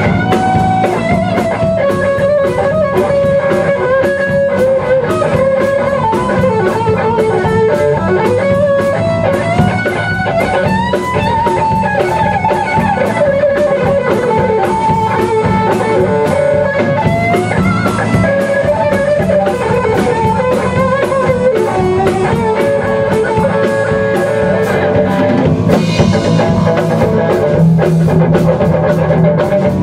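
Live rock band playing an instrumental break: a lead electric guitar plays a melodic line with bent notes over bass guitar and a drum kit with steady cymbal strokes.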